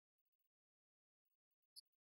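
Near silence, with one faint, short high click near the end.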